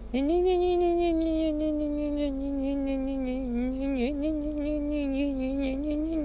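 A person's voice humming one long, held, wavering note as a vocal sound effect. It rises in pitch at the start, then slowly sinks, with a brief dip about four seconds in.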